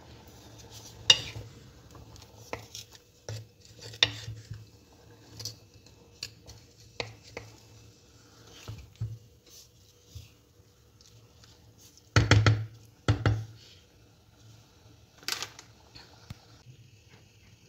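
Wooden spatula stirring spinach in a stainless steel pot of boiling water, knocking and scraping against the pot in scattered clatters. The loudest are two knocks in quick succession about twelve seconds in.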